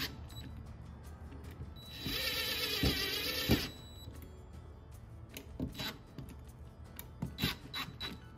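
Cordless power driver running for about a second and a half, its motor whine wavering in pitch, as it snugs screws into a carburetor body. A few light clicks and knocks follow.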